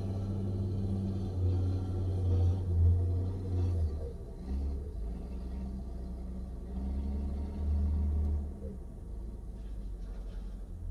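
Low, steady engine rumble heard from inside a vehicle cab, its note shifting about four seconds in and again near the end.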